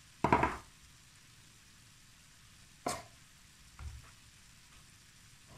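A fork mixing flour into mashed boiled potato in a stainless steel saucepan. There is a loud knock about a quarter second in, a sharp click near three seconds and a softer thud just after, over faint background hiss.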